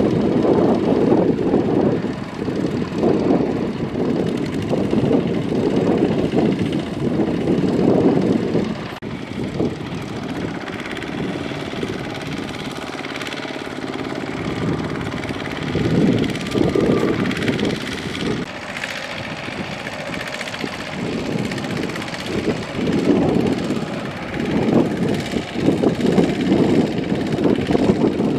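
A two-wheel walking tractor's single-cylinder diesel engine running hard under heavy load, straining to drag a loaded trailer that is stuck in mud. It is loud for the first several seconds, eases off in the middle, then surges again in bursts toward the end.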